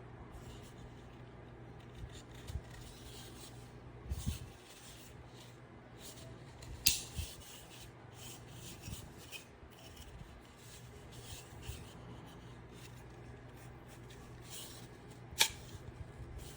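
Faint rubbing and scraping of objects being handled, with a few sharp clicks, over a low steady hum.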